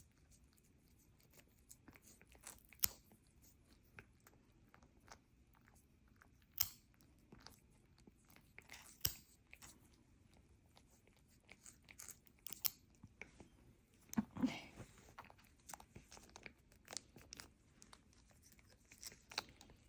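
Nail clippers snipping through a cat's claws: a series of sharp clicks at uneven intervals, the loudest a few seconds apart, with a soft rustle about two-thirds of the way through.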